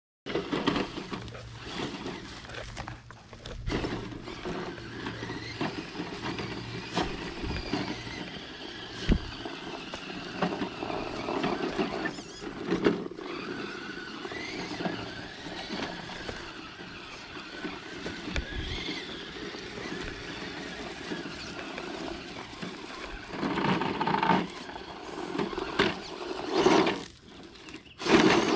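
Electric motor and gearbox of an Element RC Enduro Trailwalker scale crawler truck running under varying throttle as it crawls over dirt and rock. It gets louder in surges near the end as the truck climbs onto a rock.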